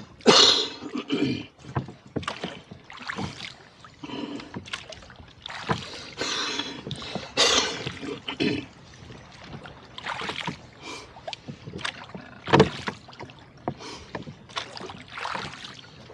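Rowboat oars working the water: irregular splashing and swishing strokes, with one sharp wooden knock about three quarters of the way through.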